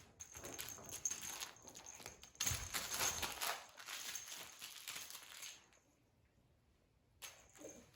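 A cat scrambling after a thrown toy doll: rustling and quick taps of paws and the toy, with a louder thump about two and a half seconds in. It stops for a moment, then a short rustle and a brief higher sound come near the end.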